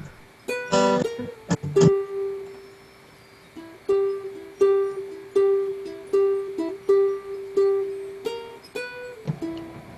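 A musical instrument played one mid-pitched note over and over, each note plucked or struck and fading quickly, about one every 0.7 s from about four seconds in. Before that there are a few clicks and short notes, then a quiet pause.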